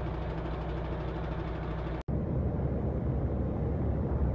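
Semi-truck engine idling steadily, heard from inside the cab; about two seconds in it cuts to the truck driving at motorway speed, a louder rumble of engine and road noise in the cab.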